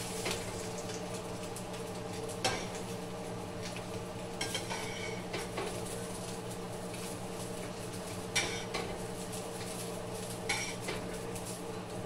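Spatula scraping and tapping on a frying pan and plate in short, scattered clicks while small pancakes are lifted out, over a steady low hum.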